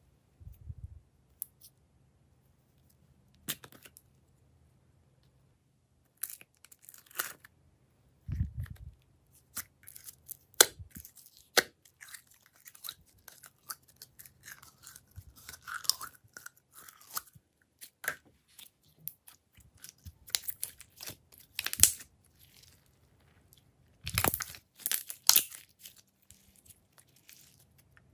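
Hands working glitter slime: yellow glitter slime squeezed out of a plastic cup and pressed into a tray of other slimes. Irregular sticky crackles and clicks, some in quick runs, with short quiet gaps between.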